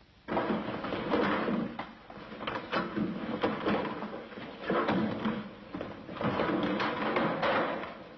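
Clattering, knocking and banging of metal car body parts and doors being handled and fitted onto a VW Beetle, in a rapid, uneven run with brief lulls.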